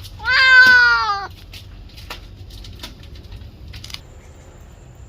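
An injured cat, impaled through the belly on a steel fence spike, gives one long yowl of pain lasting about a second and falling slightly in pitch. A few faint clicks follow.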